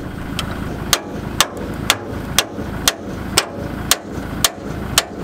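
Small hammer striking a screwdriver levered against a Land Rover Defender's coil spring, metal-on-metal blows about twice a second, to drive the spring back into the housing it has popped out of. A steady low rumble runs underneath.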